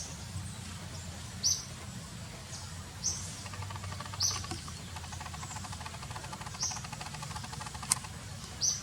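Baby monkey giving short, high-pitched squeaks, repeated six times, one every one to two seconds, with a single sharp click near the end.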